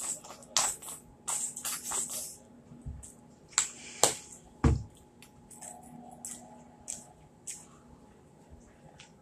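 Plastic squeeze bottle of yellow mustard sputtering in a quick run of short hissy squirts for about the first two seconds, then a few sharp clicks and softer mouth sounds of eating fried fish.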